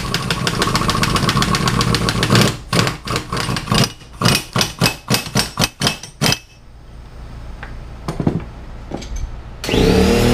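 Pneumatic impact wrench hammering on a trailer-hitch ball nut: continuous rattling for about two and a half seconds, then about a dozen short bursts as the trigger is blipped. A few light clicks follow, and a steady held tone comes in near the end.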